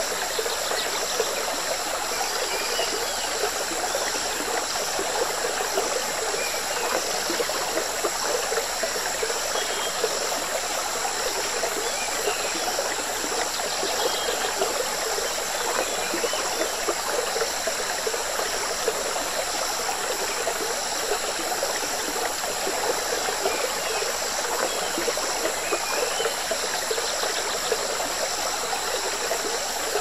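Jungle river stream running and bubbling, steady and unbroken, with a steady high hiss over it.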